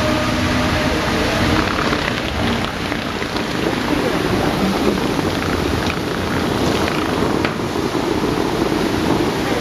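Bellagio fountain water jets spraying and the water falling back onto the lake, a steady rain-like hiss.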